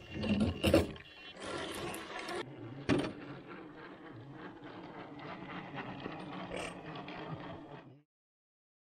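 Radio-controlled scale crawler's electric motor and geared drivetrain running as it crawls over the trail, with sharp knocks near the start and about three seconds in. The sound cuts off suddenly about eight seconds in.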